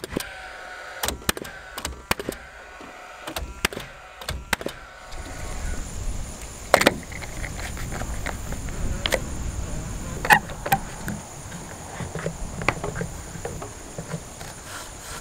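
Paslode cordless framing nailer driving nails into a 2x4 top plate: sharp shots and clicks with the nailer's fan whirring, changing pitch, through the first five seconds. Then a one-handed quick bar clamp is worked on the boards, with a few sharp snaps and smaller ratcheting clicks.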